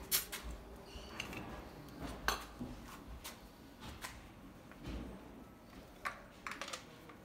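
Scattered light metallic clicks and clinks as a compression tester fitting and hand tools are handled at the spark plug holes of an engine's cylinder head, with one duller knock about five seconds in.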